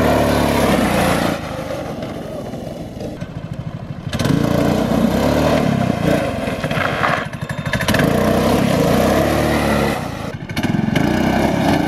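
Small gas engine of a Power Wheels Mustang ride-on toy car being driven hard: the throttle is opened about four times, the engine note rising and falling with each pull and dropping back to a lower, quieter run in between.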